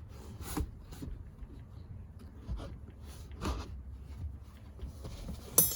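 Scattered knocks and rustling as hands work at the rear seat and its latch release of a 2020 Ford F-150, with one sharp, ringing metallic clack near the end.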